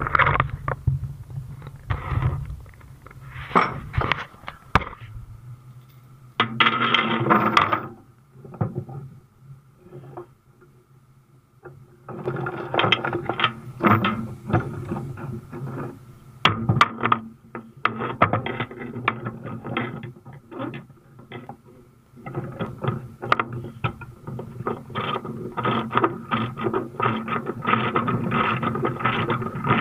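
Steel tie-down chain clanking and rattling as it is handled and pulled across a trailer deck, in irregular bursts that become a near-continuous clatter near the end, with a faint steady hum underneath.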